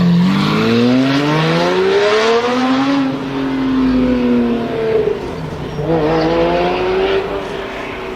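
Lamborghini Murciélago V12 with a Capristo exhaust accelerating: the engine note climbs steadily in pitch for about three seconds, then eases off and drops. It picks up again about six seconds in and holds steady.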